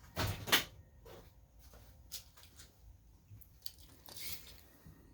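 Handling noise as cordless tools are shifted and set down: two short scraping rustles near the start, a few light clicks, and a softer scrape about four seconds in.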